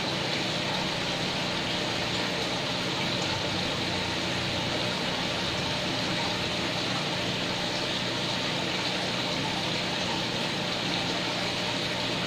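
A steady machine hum with a constant hiss over it, unchanging throughout.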